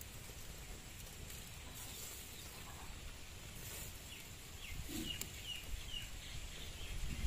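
A bird chirping three short notes in quick succession about five seconds in, over a low steady background rumble.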